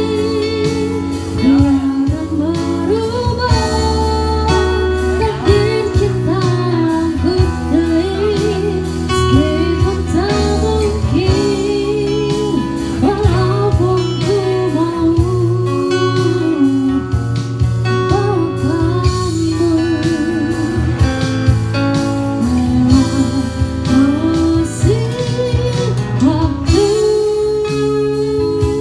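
A woman sings a song into a microphone, backed by guitars playing live.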